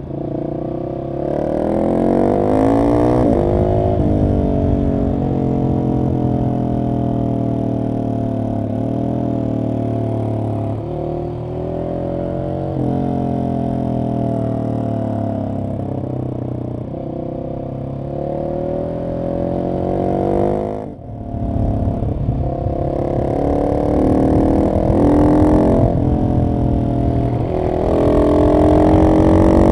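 Husqvarna 701 SM's single-cylinder engine through a decatted Arrow exhaust, accelerating hard with its note rising through each gear and dropping back at each upshift. About 21 s in the throttle closes briefly and the sound dips sharply before the engine pulls hard again.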